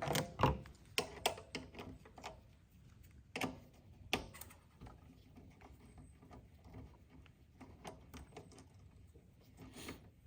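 Scattered sharp clicks and knocks of a bicycle rear derailleur and hand tools being handled while the derailleur is fitted, with a cluster near the start, a few more about three to four seconds in, then only faint light ticks.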